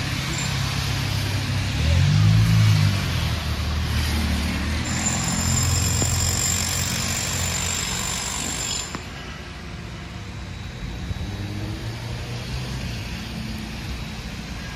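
Downtown street traffic on a wet, slushy road: tyres hiss on the wet pavement as vehicles pass. The loudest pass comes about two seconds in, with an engine note that rises and falls. A steady high whine runs from about five to nine seconds in, and the traffic is quieter after that.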